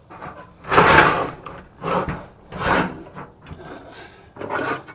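Scraping and rubbing from a microwave oven being handled during dismantling: four loud, harsh scrapes, the first and longest about a second in.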